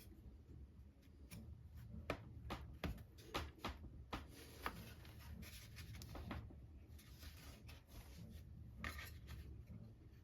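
Faint, irregular light clicks and taps with some rubbing, as small wooden parts and tools are handled on a workbench, over a low steady room hum.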